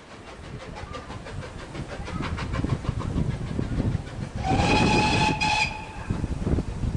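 A Great Western 4575 class steam tank locomotive pulling away with its coaches, a rumble with a regular beat that grows louder, then one steam whistle blast about a second and a half long, starting about four and a half seconds in.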